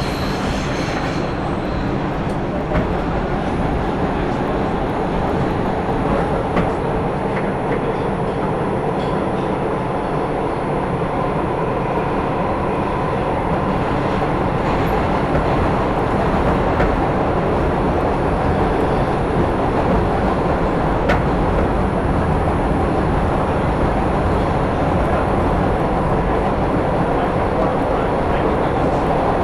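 New York City subway train running at speed between stations, heard from inside the car: a steady rumble and rattle of the wheels on the rails, with scattered small clicks. A high wheel squeal dies out about a second in.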